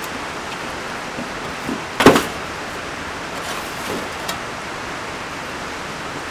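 A few light knocks, then a sharp clatter about two seconds in, from the refrigerator's sheet-metal control panel and circuit board being worked loose and slid down off the frame. A steady hiss lies underneath.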